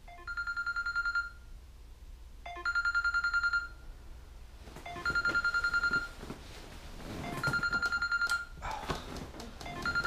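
Smartphone alarm going off on a nightstand: a warbling electronic ring about a second long, repeating every couple of seconds, five times. From about halfway through, bedding rustles as the sleeper stirs and reaches for the phone.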